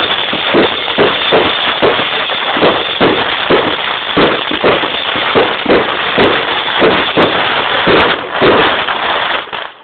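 Fireworks going off in a rapid string of bangs, two or three a second, over a continuous crackle; it cuts off suddenly just before the end.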